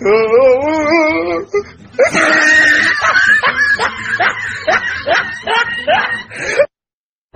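A person laughing: a drawn-out wavering laugh, then a run of quick rhythmic laughs about three a second, cutting off abruptly near the end.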